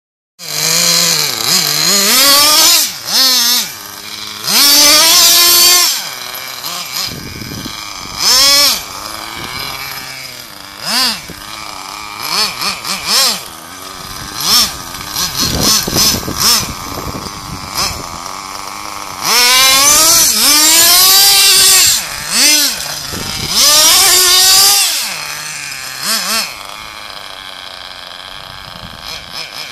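Radio-controlled touring car's motor revving hard in repeated bursts, its pitch climbing and falling as the car accelerates and slows, with a lower steady running sound between the bursts.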